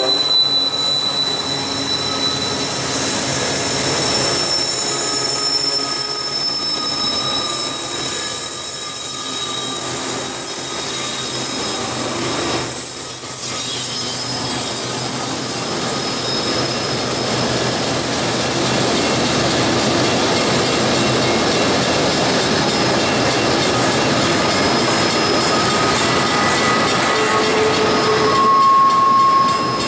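Union Pacific double-stack intermodal freight train rolling past at close range: the trailing locomotives go by first, then a steady rumble of steel wheels on rail from the container well cars. Thin, high-pitched wheel squeals come and go over the rolling noise, with a louder squeal near the end.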